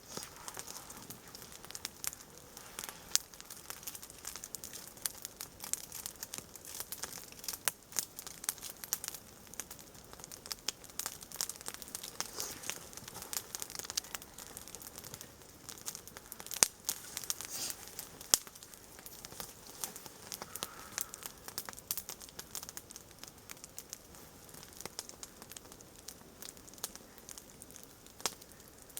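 Wood campfire crackling, with irregular sharp pops and snaps throughout.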